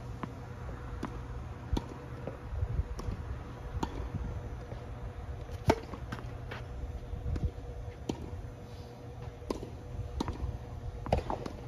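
Tennis serve: a ball bounced a few times on the court, then a single sharp crack of the racket striking the ball just before six seconds in. Scattered lighter knocks of balls bouncing and being hit, over a steady low hum.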